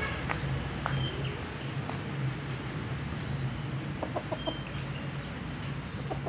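Chickens clucking now and then, with a small run of short clucks about four seconds in, over a steady low hum.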